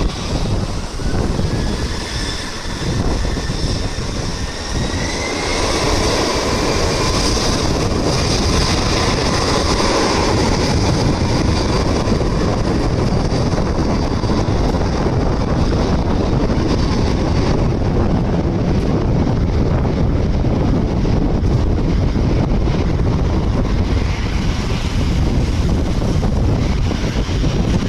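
Twin jet engines of a Gulfstream business jet on its takeoff run. Over the first few seconds a whine climbs in pitch as the engines spool up to takeoff power. From about six seconds in, a loud, steady jet roar holds as the aircraft accelerates and lifts off.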